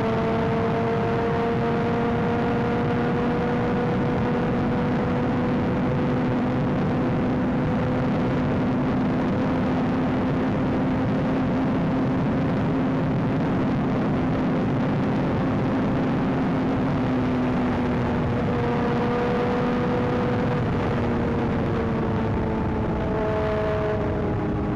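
Honda CBR 600 sport bike's inline-four engine running steadily at cruising speed under a dense rush of wind noise. The engine note shifts near the end.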